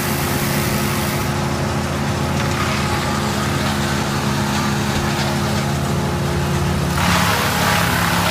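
An engine of the tree-cutting equipment running steadily, with a rougher, noisier sound joining it about seven seconds in.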